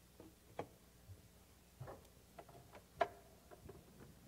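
Scattered faint clicks and knocks of equipment being handled at the podium, irregular and a few per second, the loudest about three seconds in.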